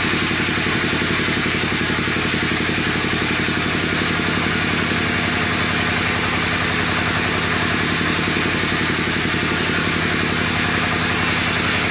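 Engine of a wood-sawing machine running steadily at an even speed, with a rapid pulsing hum and no change in pitch or load.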